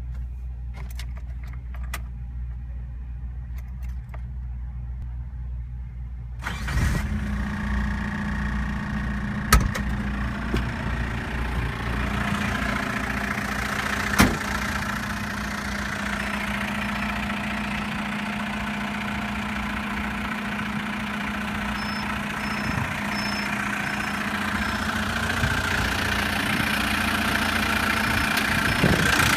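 Suzuki Samurai's swapped-in 1.6-litre VW Golf GTD turbo-diesel engine idling steadily, first muffled inside the cab, then suddenly louder and clearer about six seconds in. Two sharp knocks come a few seconds apart, and the engine grows slowly louder near the end.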